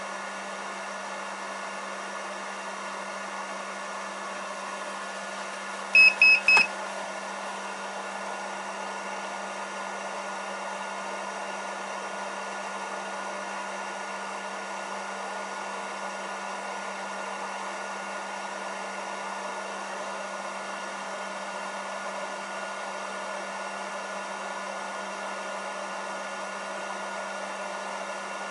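Hobby LiPo charger's cooling fan running steadily while it discharges a LiPo pack. About six seconds in, the charger beeps three times in quick succession, high-pitched and loud.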